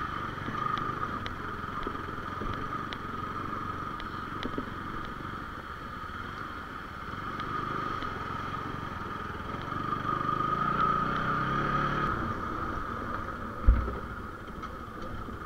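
Bajaj Pulsar 220's single-cylinder engine running as the motorcycle rides over a rough, rocky track, with a steady whine along with it; it gets louder for a couple of seconds about ten seconds in. A single thump comes near the end.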